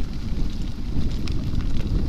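Wind buffeting the microphone as a mountain bike is ridden, a steady low rumble with light scattered ticks and rattles from the bike.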